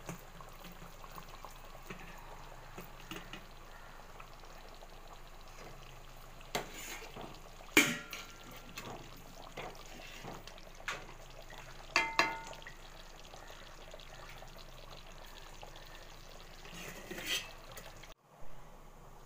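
Fish curry bubbling at a boil in a metal pot, with a few ringing clinks of a steel ladle against the pot, the loudest about eight seconds in.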